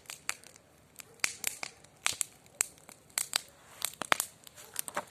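Bonfire of dry branches and brush crackling, with sharp irregular pops and snaps coming several times a second.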